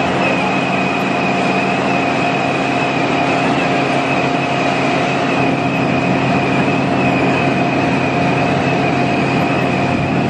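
Bulk ship-loading equipment running steadily while a cascade chute pours granular borate into a ship's hold: a continuous mechanical rushing din with a steady high whine and a lower hum.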